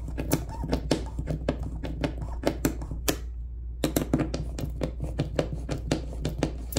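Hand screwdriver tightening machine screws into rubber well nuts on a plastic kayak hull: a rapid string of sharp clicks, several a second, that breaks off for under a second about three seconds in.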